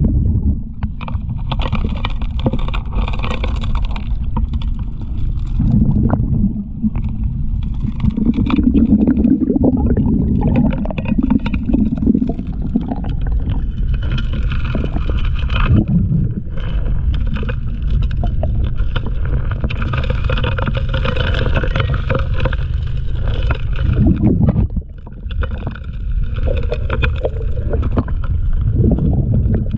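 Four-inch suction gold dredge running, heard underwater through a camera housing: a steady low drone from the motor and pump, with rushing water and scattered knocks of stones at the suction nozzle as gravel is fed in by hand.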